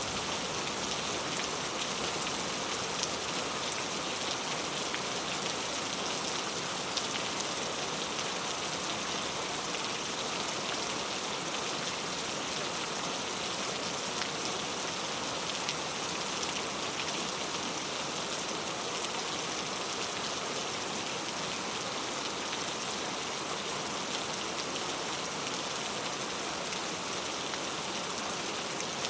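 Steady rain: an even hiss of falling rain with scattered small drop ticks, unchanging throughout.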